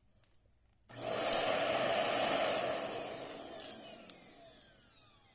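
EuroPro 2-in-1 vacuum's motor switched on about a second in with a loud rush of air, running for a couple of seconds, then switched off and winding down with a falling whine as the motor slows.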